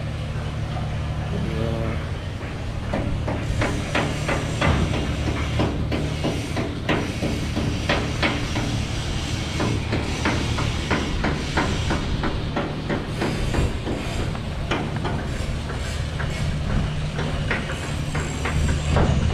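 Shipyard noise: a steady low engine or machinery hum, with many sharp, irregular knocks like hammering on metal from about three seconds in until near the end.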